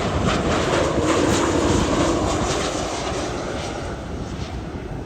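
Jet airliner passing, a loud steady roar of engine noise that grows fainter over the last couple of seconds.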